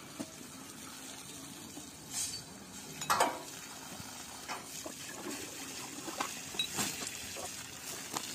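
Water splashing over an elephant being bathed, in a string of irregular splashes over a steady wash of running water; the loudest splash comes about three seconds in.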